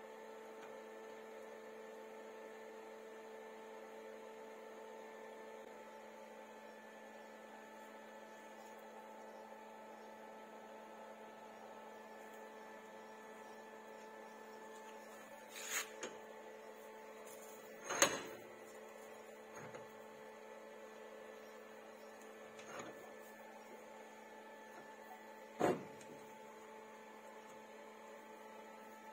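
Steady electrical hum with several steady tones, broken by a few short knocks and clicks in the second half, the sharpest a little past the middle.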